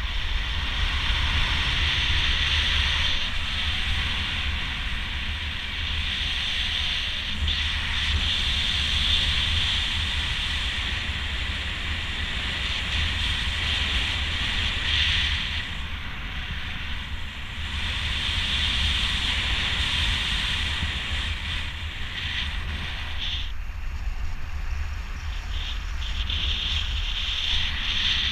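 Wind buffeting the camera's microphone: a steady rush with low rumble and a hiss that swells and eases, dropping off briefly about sixteen seconds in and again near twenty-three seconds.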